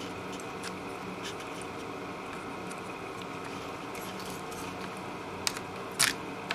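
Steady low hum of workbench room tone with faint scattered ticks, then two sharp clicks near the end.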